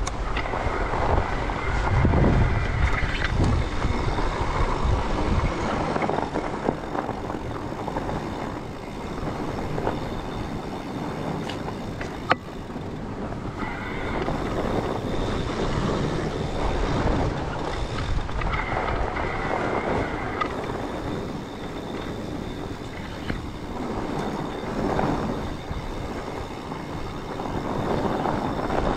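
Fat bike's wide tyres rolling and crunching over packed snow, with wind buffeting the microphone, heaviest in the first few seconds, and an occasional sharp click.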